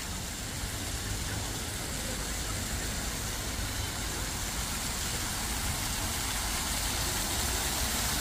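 Water from an artificial waterfall fountain pouring down stone columns into a pool, a steady rushing splash that grows louder as it is approached, over a constant low rumble.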